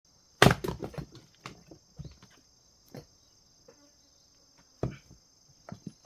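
Axe splitting firewood: two loud chopping blows, about half a second in and again near the end, each followed by split pieces knocking and clattering, with a few smaller wooden knocks between. A steady high buzz of insects runs underneath.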